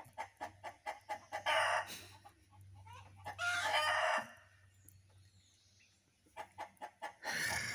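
Chickens clucking in quick runs of short notes, with a rooster crowing; the longer, louder calls come about one and a half, three and a half and seven and a half seconds in.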